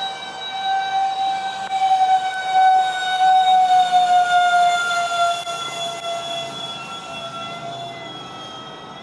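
Twin electric ducted fans of a Freewing Su-35 model jet whining as it flies past: a high steady whine that grows louder over the first few seconds, then slowly drops in pitch and fades.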